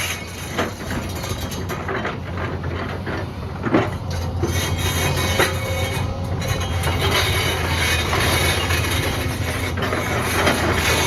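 Excavator engine running steadily under load, with a few sharp knocks; the loudest comes a little before the middle.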